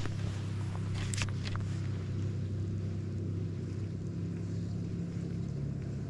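A steady low mechanical drone, engine-like and even, with a few short clicks in the first couple of seconds.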